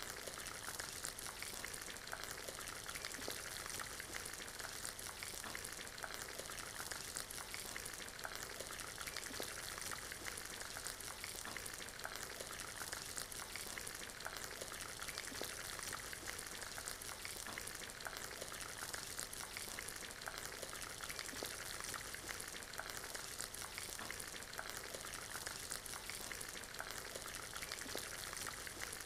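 Mixed vegetables frying in hot oil in a pan: a steady sizzle with dense fine crackling throughout.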